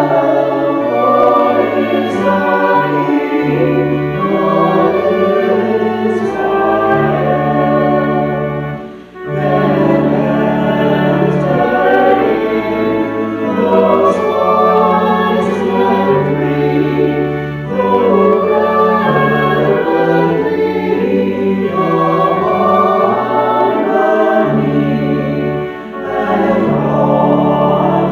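Choir singing with instrumental accompaniment and held low bass notes, with a brief break between phrases about nine seconds in.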